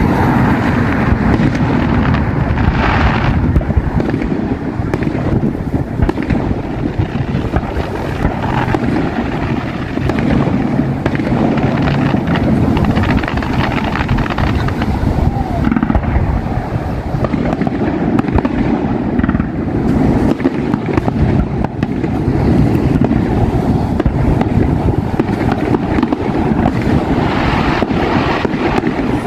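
Distant fireworks display going off continuously: many rapid pops and crackles over a steady low rumble of booms.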